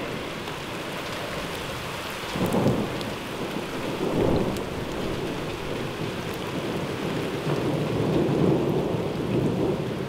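Heavy rain falling steadily, with thunder rumbling over it: a short peal about two and a half seconds in, another about four seconds in, and a longer rolling rumble over the last few seconds.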